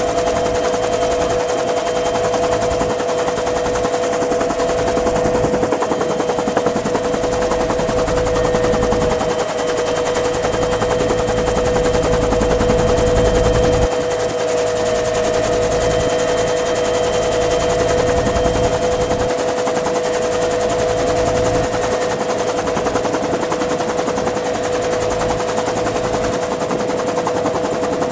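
Dillon Aero M134 minigun firing 7.62x51mm rounds at about 50 a second, a continuous rapid stream of shots, over the steady tones of the UH-1 Huey helicopter it is mounted on.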